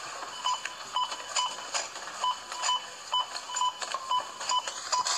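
Supermarket checkout barcode scanner beeping again and again as items are scanned, short beeps of one mid pitch about two a second, with light clicks between them.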